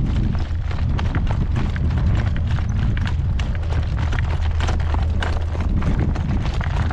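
A horse's hooves striking the ground in a quick, steady trot rhythm, under heavy wind rumble on the microphone.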